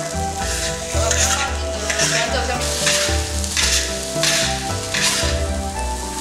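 A metal spatula scrapes and turns egg fried rice in a large iron wok over a steady sizzle, with about one scraping stroke a second.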